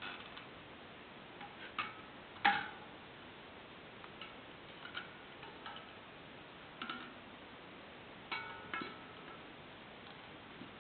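Irregular small clicks and taps as the plastic Monkey Light LED board is handled and pressed into place against a bicycle wheel's wire spokes. The loudest click comes about two and a half seconds in.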